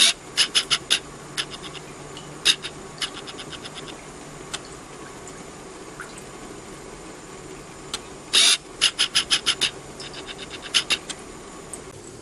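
Quick clusters of short, ringing glassy clicks from a glass graduated cylinder, where distillate runs in and a glass alcohol hydrometer floats, over a steady low hum.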